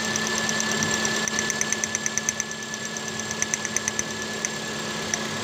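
Car engine idling while a coil-on-plug ignition coil, pulled out of its spark-plug well, sparks to ground in a rapid, uneven ticking. This is a spark test showing that the replaced coil now fires.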